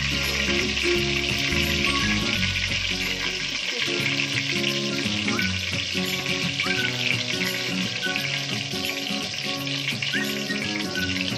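Whole spices (bay leaves, cinnamon, cloves, star anise and fennel seeds) sizzling steadily in hot ghee and oil in a pressure cooker. Soft background music plays underneath.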